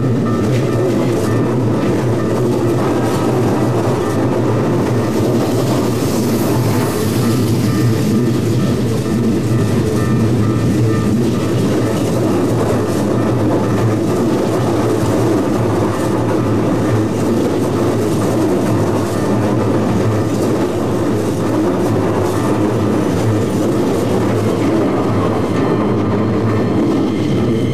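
Keikyu electric train running past close to track level: a steady, loud rumble of wheels on rail and running gear.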